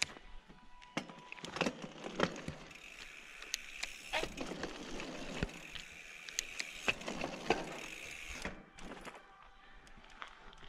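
Mountain bike rolling over a rough, rocky dirt trail: tyres crunching on gravel and the bike rattling with frequent sharp knocks. The rolling noise stops about eight and a half seconds in, leaving only a few scattered clicks.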